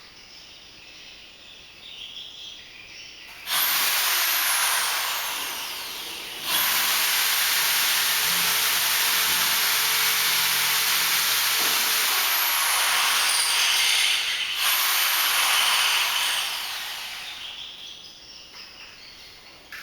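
Electric drill with a concrete bit boring into a cement wall, run in three goes: a short one, a long one of about eight seconds, and a short one near the end, each dying away as the trigger is let off.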